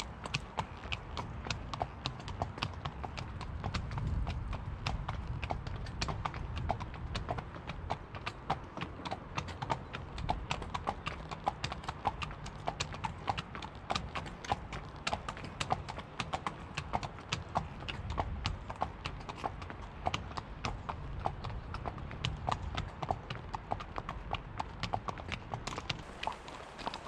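Hooves of two horses walking, clip-clopping on a paved bridge deck and then a path, with a dense, irregular run of sharp hoof strikes over a low rumble.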